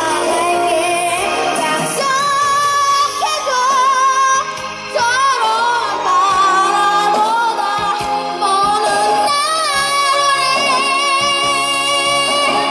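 Pop song performed live: a child singer sings the lead into a microphone over a backing track, holding notes with a wavering vibrato.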